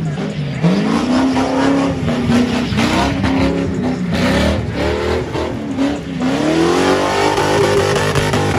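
Ford Mustang doing donuts: its engine revs climb and drop several times, with a long rising rev about six seconds in, over continuous tire screech.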